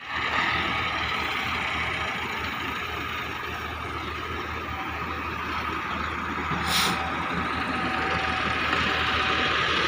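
Massey Ferguson 385 tractor's diesel engine running steadily as it pulls an empty trolley over rough ground. A short burst of noise comes about seven seconds in.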